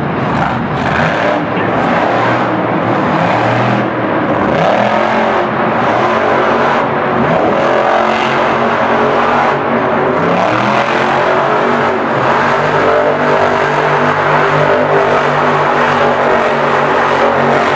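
Max-D monster truck's supercharged V8 engine running hard, its pitch rising and falling with the throttle as the truck wheelies and spins on the dirt.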